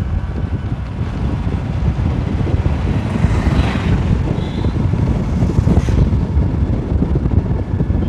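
Wind buffeting the microphone of a moving motorbike: a loud, uneven low rumble with no speech over it.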